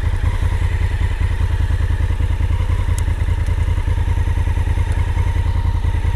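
Honda Africa Twin's parallel-twin engine running steadily with an even, rhythmic chug as the bike is ridden across grass.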